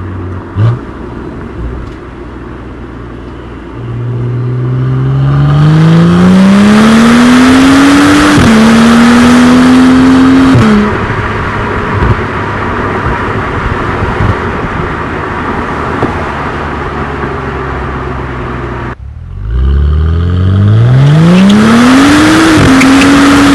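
BMW N55 turbocharged inline-six, MHD Stage 1 tuned, through a custom exhaust, accelerating hard twice. About four seconds in the note climbs steadily, drops briefly at an upshift and climbs on, then falls back when the throttle is lifted near eleven seconds; near nineteen seconds a second pull rises quickly from low, with another upshift near the end.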